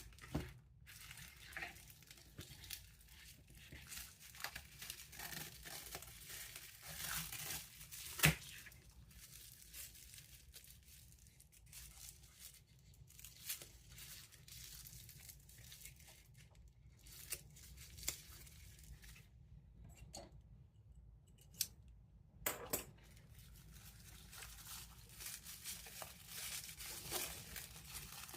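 Toy box packaging being opened by hand: cardboard and plastic rustling, crinkling and tearing, with scattered sharp clicks, the loudest about eight seconds in.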